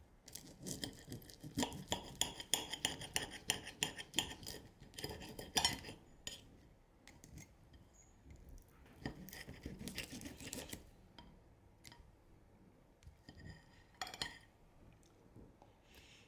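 Cutlery on a plate: a dense run of quick small clinks and scrapes over the first few seconds, then scattered single taps.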